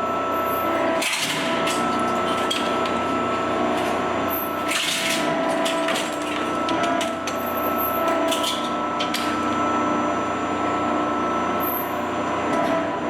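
Industrial shredder running with a steady hum while destroying a rifle, with a few short bursts of harsh grinding as parts are chewed up.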